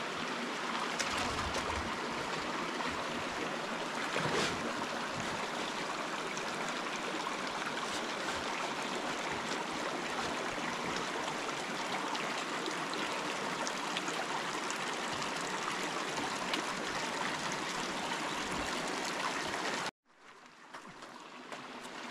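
River water rushing steadily, with a few faint clicks or knocks over it. The sound cuts out abruptly about two seconds before the end, then fades back in.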